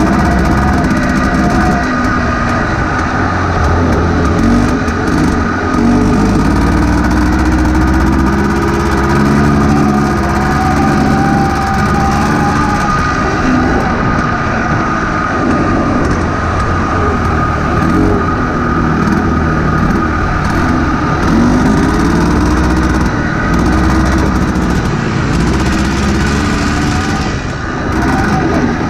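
1986 Honda Odyssey buggy's engine running under load while driving on a dirt track, its pitch rising and falling again and again as the throttle is worked.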